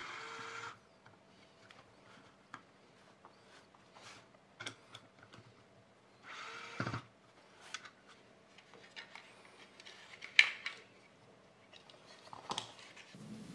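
Small plastic clicks, ticks and rustles from hands taking the cooling fan out of a Bambu Lab P1S printhead's plastic front cover. There is a brief rustle near the start, another about six and a half seconds in, and a sharper click about ten seconds in.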